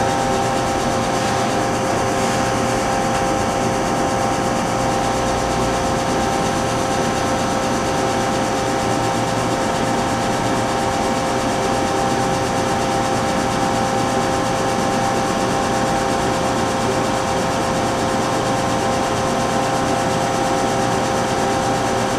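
Hardinge Conquest T42SP CNC lathe running: a steady mechanical hum with several steady whining tones that do not change.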